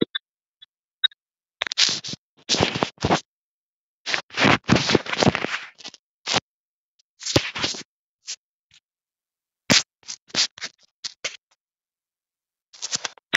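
Rubbing and scratching noise against a phone's microphone, coming in irregular bursts with short silent gaps between them.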